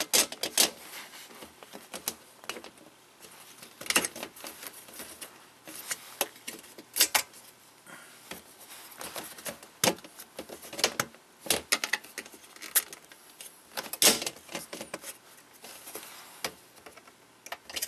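Irregular sharp clicks and knocks of hard plastic parts being handled and fitted together: a floor fan's plastic housing and its 3D-printed replacement foot being slid back into place.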